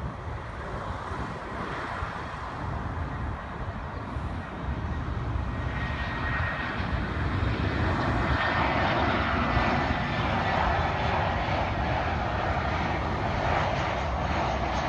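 Jet airliner on final approach, an Airbus A320-family twinjet, its engines' rushing noise growing louder about six seconds in as it comes closer.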